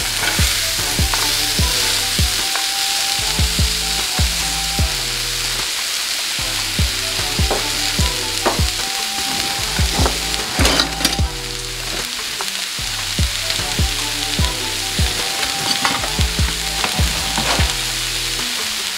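Diced onions and bell peppers sizzling in melted butter and olive oil in a nonstick skillet, a steady frying hiss. Quiet background music of low held notes and light regular beats runs underneath.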